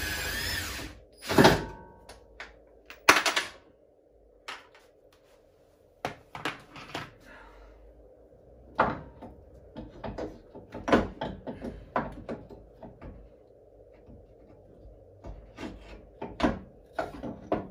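A cordless power tool runs briefly on the front suspension hardware for about the first second. Then come loud metallic clunks and scattered knocks and clicks of tools and suspension parts being handled.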